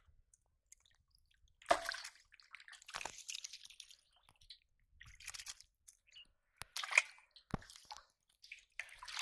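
Wet mud squelching and muddy water splashing in short, separate bursts as carp are grabbed by hand and live fish move in a metal basin of water, with a couple of sharp knocks a little after the middle.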